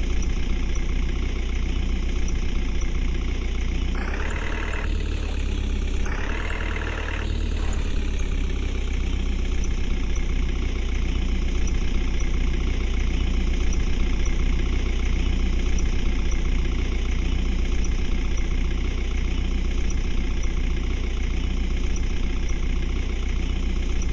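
Diesel engine of a JCB 3DX backhoe loader idling steadily with a deep rumble; its pitch rises briefly twice, about four and six seconds in, then settles back to idle.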